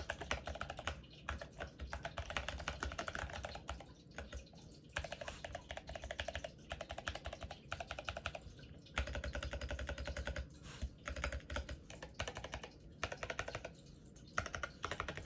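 Mechanical keyboard typing sound test: a GMMK Pro with Kailh Box V2 Brown tactile switches and ceramic keycaps, typed in fast runs of keystrokes with short pauses between them. Described as very creamy.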